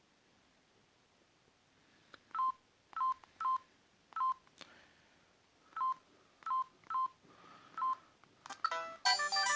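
Sagem my150x mobile phone: eight short keypad beeps, each a single high tone, spaced unevenly over about six seconds as its buttons are pressed. Near the end, one of its preloaded ringtones starts playing, several notes at once.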